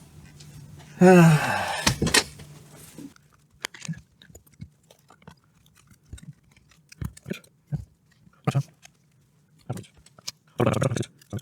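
A door creaks as it swings shut, with a falling squeal from the hinge, and latches with a sharp click about two seconds in. The background noise drops away once it is closed, and light scattered clicks and taps follow.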